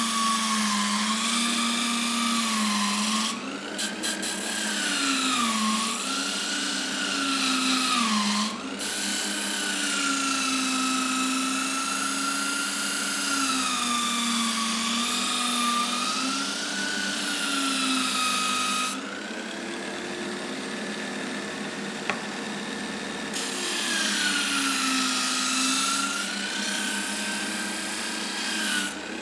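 Bench-mounted power sanding disc grinding the rounded end of a Tasmanian oak board. The motor whine sags in pitch each time the wood is pressed in and recovers as it eases off, under the rasp of abrasive on hardwood. About two-thirds of the way through the rasping drops away for a few seconds while the disc keeps spinning free.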